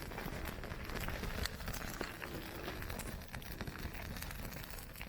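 A small fire of Cassiope tetragona (petrol grass) crackling, with irregular light clicks over a steady hiss.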